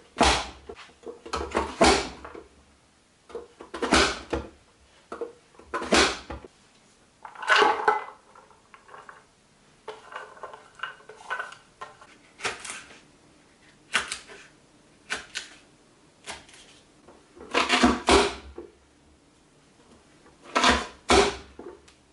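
Press-down plastic vegetable dicer being pushed shut again and again, each push a sharp crunching clack as the grid blade cuts through carrot and leek pieces, roughly every two seconds. Near the middle there is a softer rattle of diced carrot being tipped into a pot.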